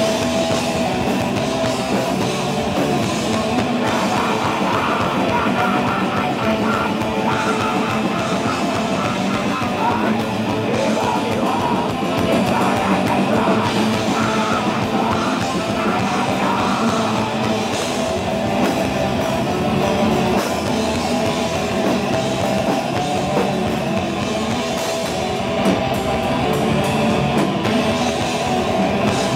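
A black metal band playing live at full volume: distorted electric guitars and a drum kit, with a vocalist singing into the microphone, heard through a small camcorder's built-in microphone.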